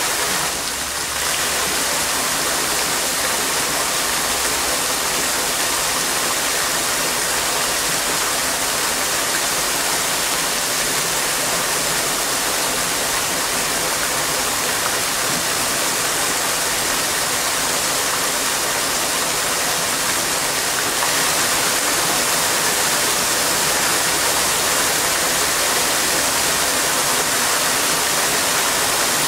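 Fountain water jets rising in a ring and splashing back into a shallow pool: a steady rush of falling water, dipping briefly about a second in and a little louder past the two-thirds mark.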